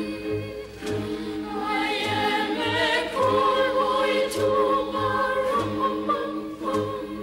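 A choir singing a slow carol over music, with a steady low drum beat about twice a second.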